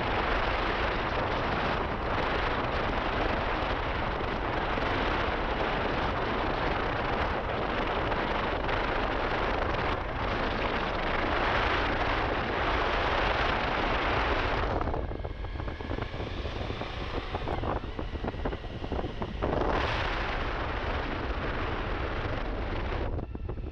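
Wind rushing over the microphone while a Suzuki V-Strom motorcycle is ridden off road, with its engine running underneath. Past halfway the rush drops for a few seconds, letting the engine's steady tone and some knocks come through, then returns briefly.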